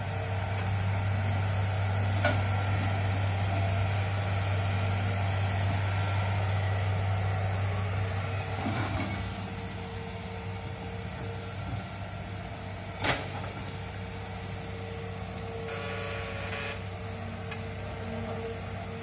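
Hydraulic excavator's diesel engine running steadily as it digs a ditch, louder for the first eight seconds or so and then easing off a little. A sharp knock comes about two seconds in, and a louder one about thirteen seconds in.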